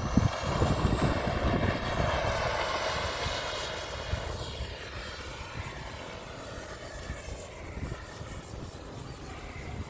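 Twin 64 mm electric ducted fans of an Arrows Hobby F-15 RC jet running with a jet-like whine and rush of air. A high whine climbs in pitch over the first two seconds, then holds steady while the sound slowly gets quieter.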